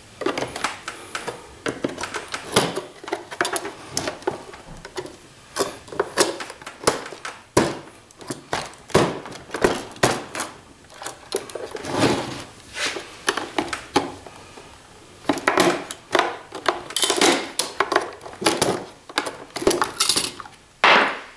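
Irregular clicks, knocks and plastic clatter from a screwdriver prying a tightly fitted circuit board out of a CPAP machine's plastic housing. The clatter is busiest in the last few seconds as the board comes loose.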